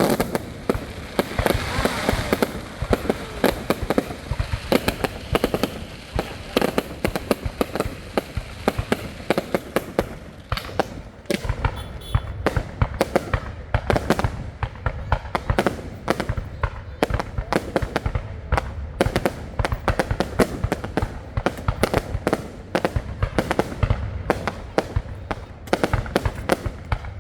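Fireworks going off in a rapid, unbroken string of sharp bangs and crackles, several per second.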